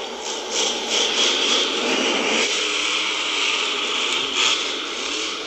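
Son-uva Digger monster truck's supercharged V8 engine running under power as the truck drives across the arena dirt, its loudness rising and falling.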